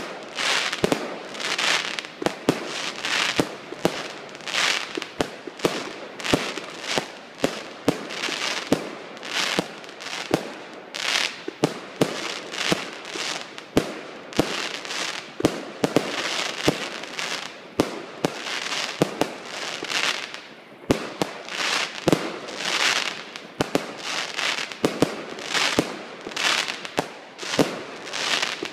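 Aerial fireworks going off in rapid succession: sharp bangs, about one or two a second, with a hissing crackle of bursting stars between them.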